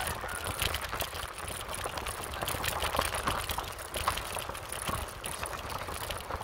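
Wind buffeting the microphone and a stream of small rattles and knocks from a bike being ridden along a paved road.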